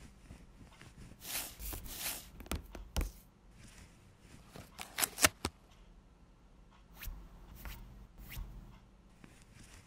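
Soft swishing for about a second, then a run of sharp clicks and taps, loudest a little after the midpoint: a tablet in a folding cover being set down, flipped open and tapped with a fingertip.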